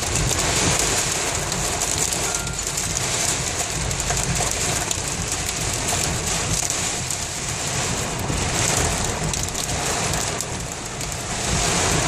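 Torrential rain mixed with hail drumming densely and steadily on a car's roof and windscreen, heard from inside the car.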